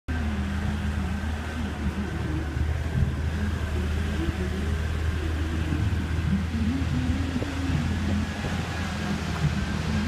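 Steady roar of a large mountain waterfall: a deep rumble under an even rushing hiss, with no breaks.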